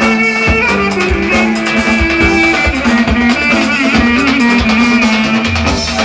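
Roman havası, Turkish Romani dance music: an ornamented melody over a steady drum beat, played loud.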